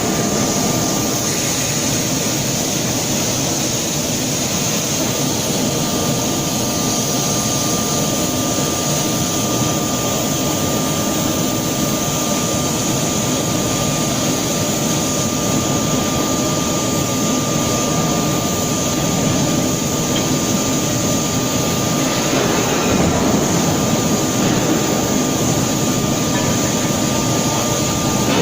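Steady roar of heavy machinery in a forging workshop, with a thin, steady whine running through it and no hammer blows; it grows a little louder after about twenty seconds.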